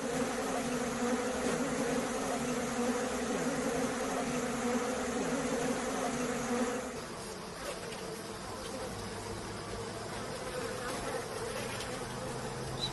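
A colony of honeybees buzzing steadily as a mass on their comb while it is cut. The hum holds a low pitch until about seven seconds in, when the lower part fades and a thinner, higher buzz carries on.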